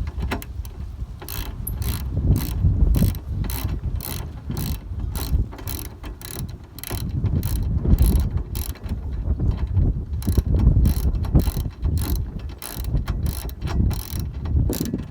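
Hand ratchet with a 5/8 socket clicking steadily, about two to three clicks a second, as it runs a nut down onto a spare tire carrier stud.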